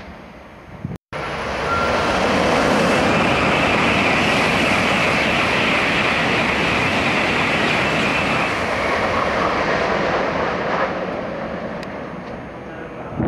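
N700-series Shinkansen bullet train passing at speed: a loud rushing noise that swells about a second and a half in, holds for several seconds, then fades away near the end.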